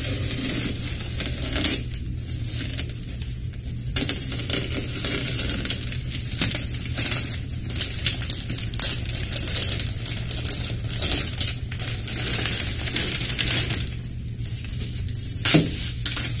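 Clear plastic packaging film crinkling and crackling as it is pulled and peeled off a kayak hull, with many short sharp crackles.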